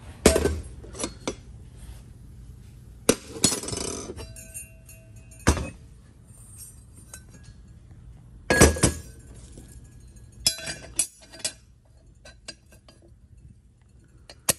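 Metal transmission parts clinking and knocking against each other and a steel workbench as a clutch drum with its input shaft is handled and set into its housing. Several sharp clinks with short metallic ringing come in clusters, the loudest about 3 s and 8.5 s in.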